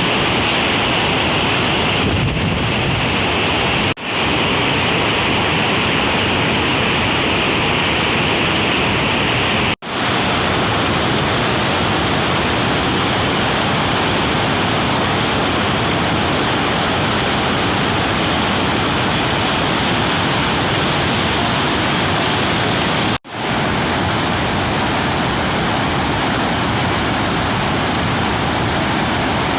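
Loud, steady rush of dam-release water pouring through open spillway gates. The sound cuts out for an instant three times.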